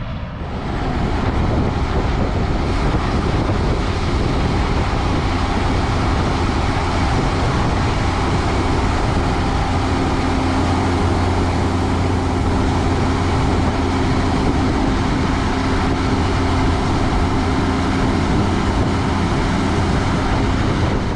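Vehicle engine running steadily, with a low hum over a constant rush of noise; it grows louder about a second in.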